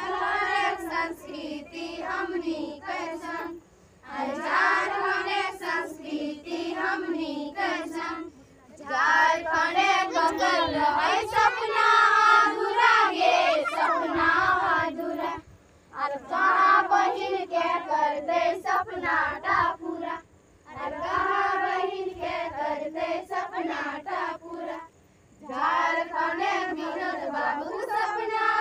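A group of girls singing a Karam folk song together, unaccompanied, in phrases of a few seconds each with short breaks between them.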